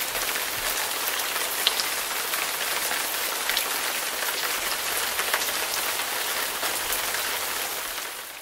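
Steady hiss of rain falling on open water and a kayak's deck, with scattered sharp drop ticks, fading out near the end.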